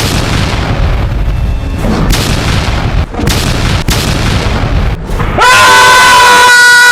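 Loud rumbling booms from film sound effects with a music bed. About five and a half seconds in, a loud, steady blare of several held pitches sets in.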